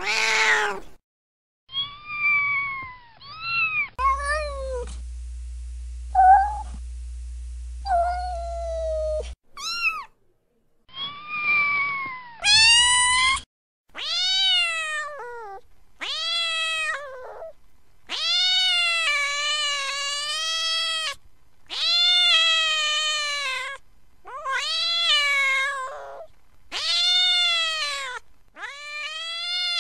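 Domestic cat meowing over and over. Short, varied meows come first, then from about halfway a run of long, drawn-out meows about every two seconds. A steady low hum sits under a few of the early meows.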